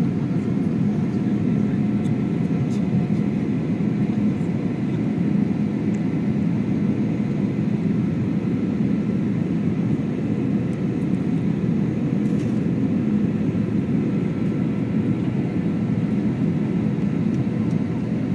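Cabin noise of a Webjet Boeing 737 on landing approach: the engines and airflow make a steady low drone with a few faint steady tones above it.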